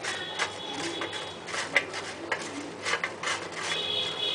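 Crisp, freshly fried potato cubes clicking against each other and rustling on a paper towel as a hand picks through them, in irregular taps.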